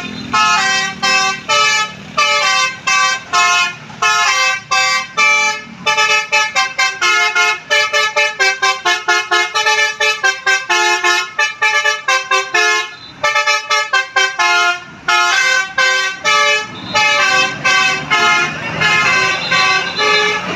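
Basuri musical 'telolet' air horn on a bus playing a tune as a quick run of short, separate notes, with longer held chords near the end.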